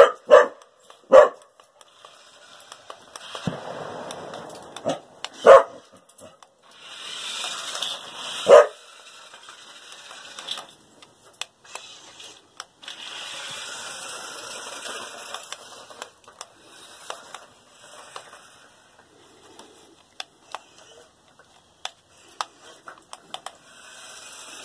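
A dog barking sharply at a remote-control stunt car: three quick barks at the start, then single barks a few seconds apart. In between, the RC car's electric motors whir and its wheels hiss over concrete in runs of a few seconds.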